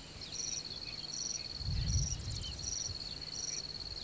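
Insects chirping: a steady high trill, with a higher chirp repeating about every 0.7 s, and a brief low rumble near the middle.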